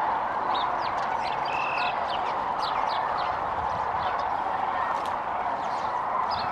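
A massed chorus of sandhill cranes calling, many overlapping calls blending into a steady din, with single sharper calls standing out above it.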